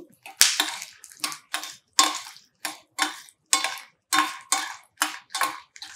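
A metal spoon knocks and scrapes against a stainless steel pan about three times a second, stirring cashews, peanuts and dried red chillies frying in oil for a tempering.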